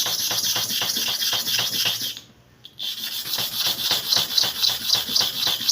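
Hair clipper blade rubbed back and forth by hand on a flat sharpening surface, being ground flat. Quick, even gritty strokes, about five a second, stop briefly about two seconds in and then start again.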